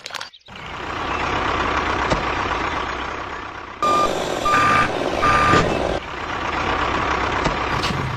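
A heavy vehicle's engine running with a steady noise, and about halfway through a reversing alarm sounding three short beeps on one pitch.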